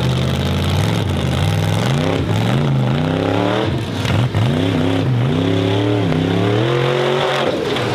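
Formula Offroad car's engine running loud. It holds steady revs at first, then is revved up and down again and again in quick swells, about one to two a second.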